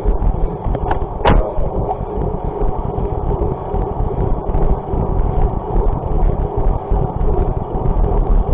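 Steady, loud rumbling noise of travel, with wind buffeting the microphone, and a sharp click about a second in.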